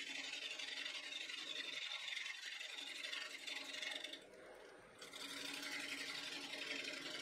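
Bowl gouge cutting the inside of a wooden bowl spinning on a lathe: a steady hiss of shavings over the lathe's hum. The cut breaks off for under a second about four seconds in, then picks up again.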